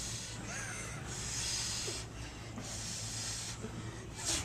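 A man breathing forcefully through his teeth while straining to press a heavy barbell: two long hissing breaths of about a second each. A brief sharp sound comes near the end.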